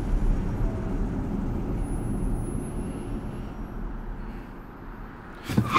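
Low, steady rumble of a car's interior road noise while driving, fading down over the last couple of seconds. Just before the end a sudden loud hit cuts in.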